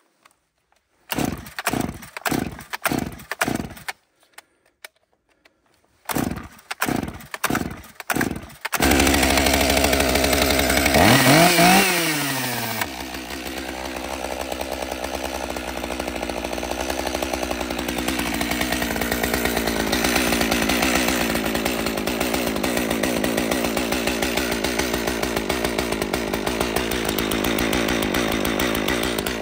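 Stihl MS 201 T top-handle two-stroke chainsaw being pull-started: two runs of quick tugs on the starter cord, then the engine catches about nine seconds in and runs fast. It revs up and drops back around twelve seconds in, then settles into a steady idle.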